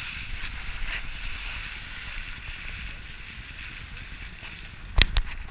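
Wind rumble on the microphone and road noise from a camera mounted on the outside of a moving car, with two sharp knocks in quick succession near the end.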